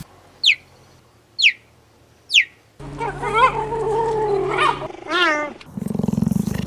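A run of animal calls: three short, high chirps falling in pitch about a second apart, then a long wailing call that bends up and down. A short wavering call follows, then a low raspy growl near the end.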